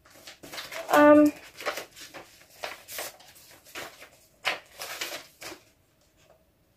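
Paper rustling in short, irregular bursts as a letter is handled and opened from its envelope. About a second in, a brief hummed 'mm' from a person is the loudest moment.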